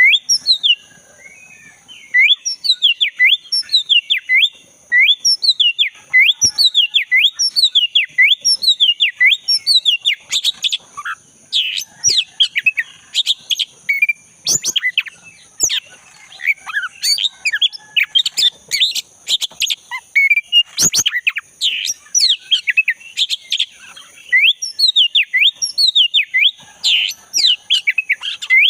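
Black-breasted oriental magpie-robin (kacer dada hitam) singing hard and continuously: quick runs of repeated sharp whistled notes that dip and rise, turning into a busier, more varied song about ten seconds in.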